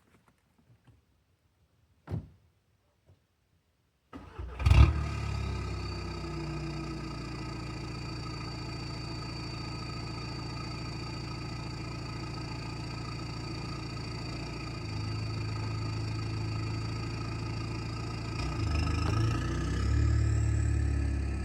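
A single thump, then the Volkswagen Jetta SportWagen TDI's turbodiesel engine starts about four seconds in and settles into a steady idle. Near the end the engine note swells and rises in pitch as it is given some throttle.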